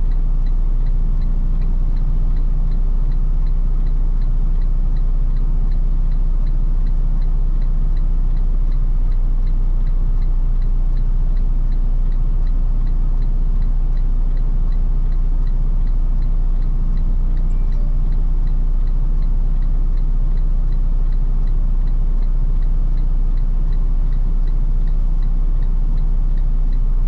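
Semi truck's diesel engine idling steadily, heard from inside the cab as an even low rumble, with a faint regular ticking over it.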